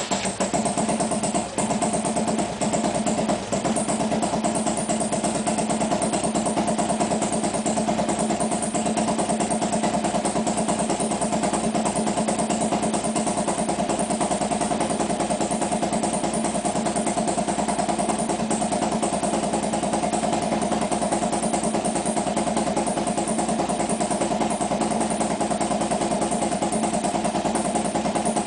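Harley-Davidson V-twin engine idling as it warms up. It runs steadily after a couple of brief dips in the first few seconds.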